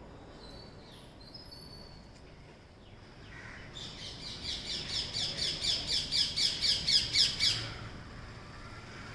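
A bird calling: a few faint thin whistles, then about four seconds in a fast run of repeated notes, about four or five a second, growing louder before it stops.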